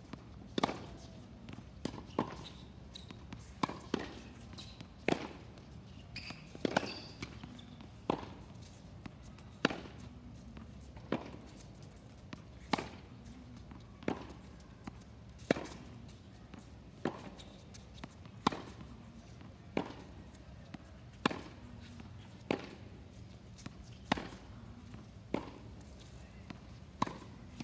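Tennis racket hitting a tennis ball over and over on a hard court: sharp pops about every second and a half, each loud strike often with a fainter ball bounce close beside it.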